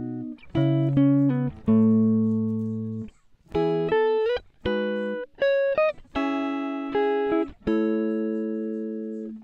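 Background music: a slow melody of single notes that ring on and fade, several sliding in pitch into the next.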